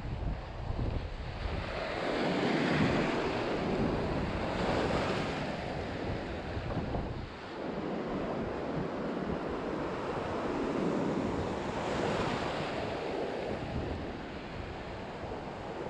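Shallow sea surf foaming and washing around, swelling and easing every few seconds, with wind buffeting the microphone.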